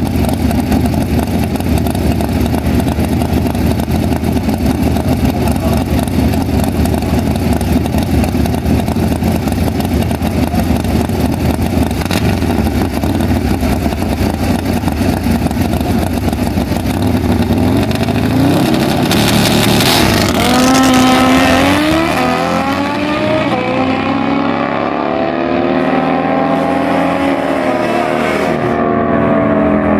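Two drag-racing motorcycles, one a Harley-style V-twin, run at the starting line, then launch about 19 seconds in. The engines rise sharply in pitch and climb again through several gear changes, growing duller as they pull away down the track.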